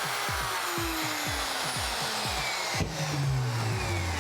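Spiral saw running steadily as it cuts through a plastic post on a kayak transducer shield.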